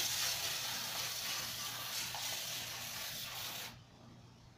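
Aerosol cooking spray hissing steadily as it coats a disposable aluminium foil pan, cutting off abruptly near the end.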